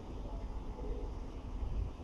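Outdoor ambience with no train passing: a low, uneven rumble of wind on the microphone.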